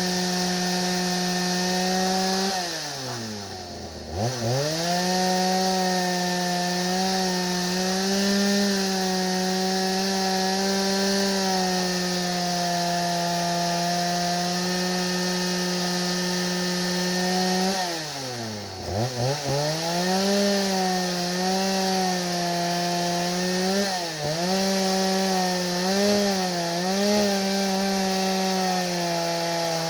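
4900 chainsaw running at full throttle on a homemade chainsaw mill, ripping lengthwise through hard white oak. Its steady high engine note bogs down sharply under the load twice, at about three seconds and eighteen seconds in, nearly stalling each time before climbing back. Smaller dips follow near the end.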